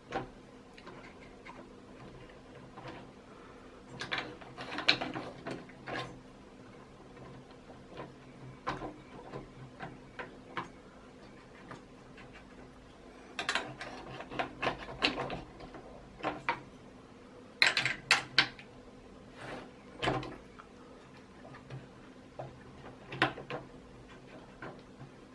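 Scattered clicks and clinks of a spanner and fingers on the metal bed carriage and eccentric bolts of a Creality CR-10 3D printer while the bolts are adjusted, coming in small clusters a few seconds apart. A faint steady hum runs underneath.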